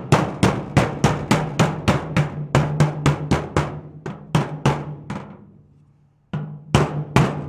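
Hammer blows on the thin steel wall of a container, about three a second, each ringing briefly, as a dent is beaten back into shape. The blows stop for under a second about five and a half seconds in, then start again. A steady low hum runs underneath.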